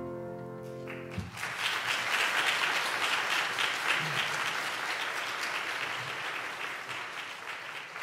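A piano's last held chord dies away, and about a second in an audience breaks into applause that slowly tapers off.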